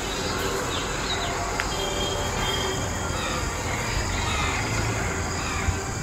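Steady outdoor background noise with a low hum, and a few faint, short, high chirps over it.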